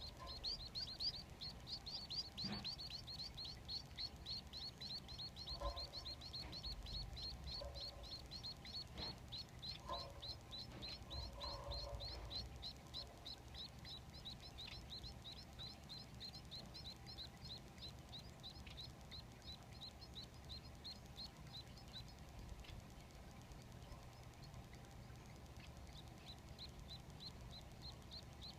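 Society finch nestlings begging for food: a rapid, steady run of short high chirps, several a second. The chirping thins out and stops for a few seconds about two-thirds of the way through, then starts again near the end.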